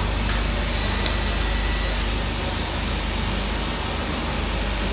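Electric motor of an Eastman cloth drill machine running with a steady hum.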